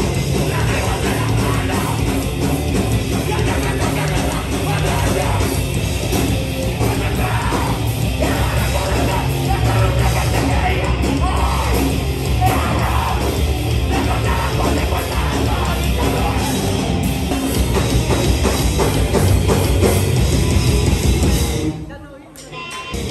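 Live hardcore band playing loud and fast: distorted guitar, bass and drums with shouted vocals. The music drops out for about a second near the end, then comes straight back.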